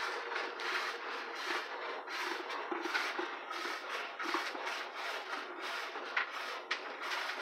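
Hand-milking: streams of goat milk squirting into a stainless steel pail, a hissing spurt about three times a second as the teats are squeezed in turn.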